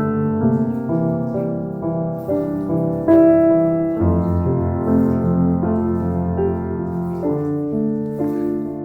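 Background music: a soft piano melody over sustained chords.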